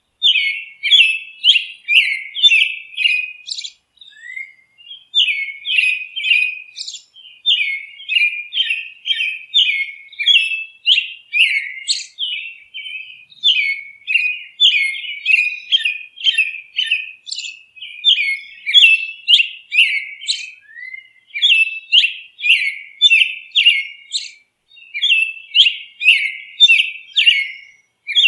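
Bird chirping in quick runs of short, high notes, several a second, broken by a few brief pauses.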